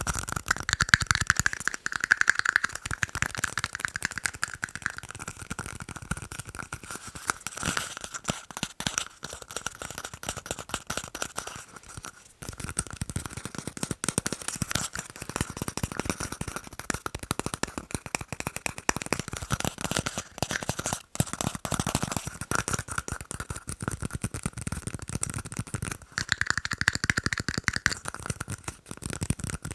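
Fast, continuous tapping on tiny cups: dense rapid taps with a faint ringing note from the cups that swells at times.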